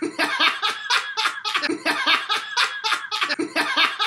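Hearty, loud laughter: a rapid, unbroken run of voiced bursts, about five a second.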